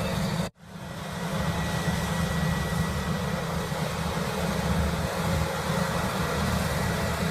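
Heavy farm machine engine running steadily with a low rumble, cutting out abruptly about half a second in and coming back within a second.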